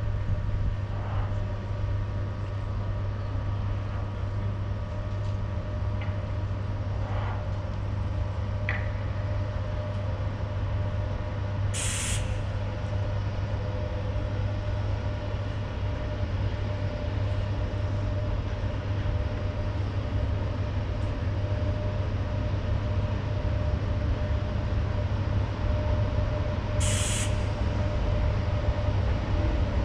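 Standing EP1M electric locomotive giving off a steady drone, with two short hisses of released air, about twelve seconds in and again near the end.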